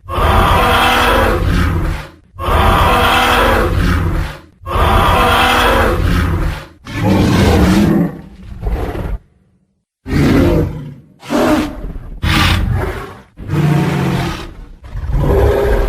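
Tyrannosaurus rex roar sound effects: a series of loud roars about two seconds each, one after another. About nine seconds in there is a brief silence, after which the roars come shorter and closer together.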